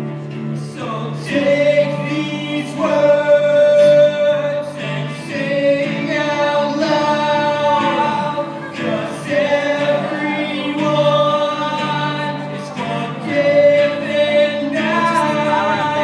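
Live singing with long held notes over acoustic guitars and keyboard, a small band performing in a school hall.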